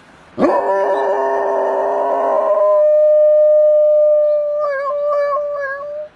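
Dogs howling, taken up as an imitation of an ambulance siren: several howls together at first, then one long held howl that wavers near the end.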